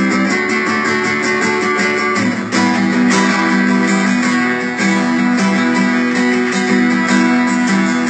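Instrumental break in a Bengali folk-rock song: guitars strumming chords in a steady rhythm, with a chord change about two and a half seconds in.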